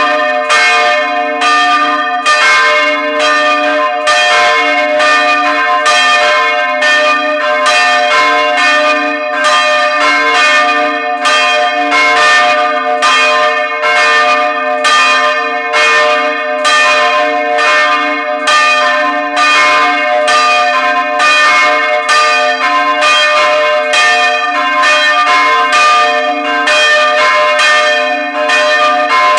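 Several large church bells swinging in a wooden bell frame and ringing together in a continuous peal, their clappers striking about twice a second, heard close up from inside the belfry.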